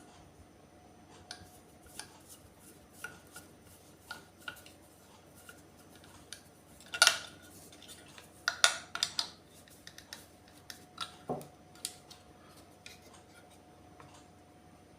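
Light clicks and clinks of small metal and plastic parts as the top cover of a floor pop-up outlet box is screwed down, with a sharper clack about seven seconds in and a quick cluster of clicks around nine seconds.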